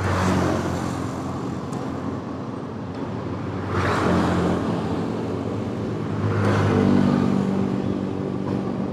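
Road traffic passing close by, a steady rumble with vehicles swelling past about the start, about four seconds in and again near seven seconds, the last with a clear engine note.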